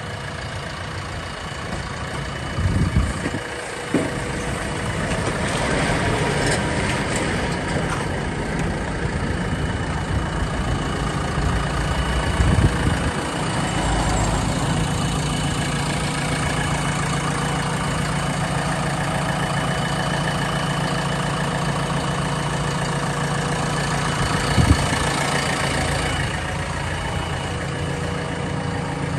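Diesel engine of a JCB 3DX backhoe loader running steadily, growing somewhat louder a few seconds in, with a few short clunks along the way.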